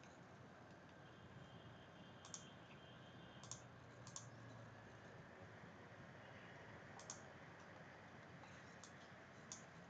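Faint computer mouse clicks, about six sharp single clicks spaced irregularly, over a low steady hiss of room tone.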